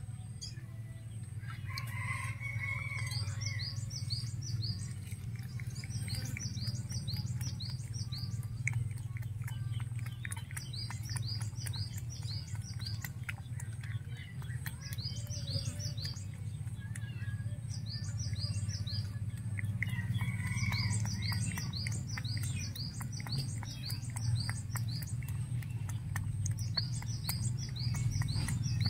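A bird chirping in repeated short runs of quick falling notes, every few seconds, over the soft rapid clicks of a cat lapping liquid from a plate. A steady low hum runs underneath.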